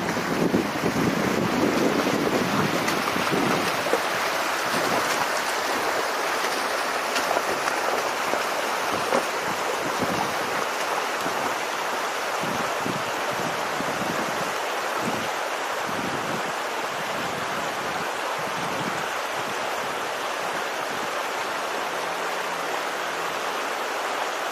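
Water rushing and splashing as a small car fords a shallow stream, its wheels churning through the current; a steady rushing hiss, a little heavier in the first couple of seconds.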